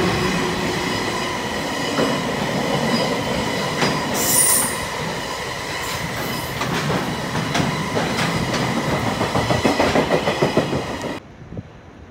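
Freight train of tank wagons rolling past close by: a steady rumble of wheels on rail with a high ringing squeal, and a brief sharp squeal about four seconds in. Regular wheel clacks over the rail joints grow louder near the end, then the sound cuts off abruptly.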